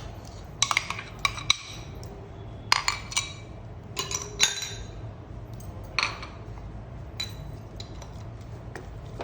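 A spoon knocks and clinks against a mixer-grinder jar and the cooking pan as the ground coconut and spice mixture is emptied into the pan. The sharp clinks ring briefly and come in small clusters, several in the first five seconds and one near the middle, growing fainter toward the end.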